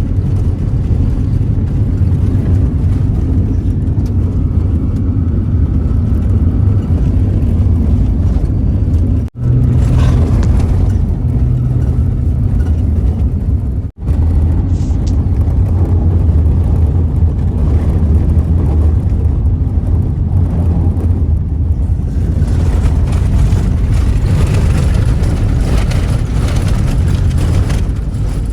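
A 1992 Holden VP Commodore driving on a gravel dirt road: steady low engine and tyre rumble with road hiss. It cuts out briefly twice, about 9 and 14 seconds in, and the gravel hiss grows near the end.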